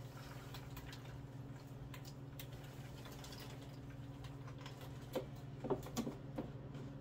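Popped popcorn tipped from a clear plastic lid into a red popping bowl, faint light ticks of the pieces falling and scattering on the counter. About five seconds in, a few sharper clicks as the clear lid is fitted onto the bowl, over a steady low hum.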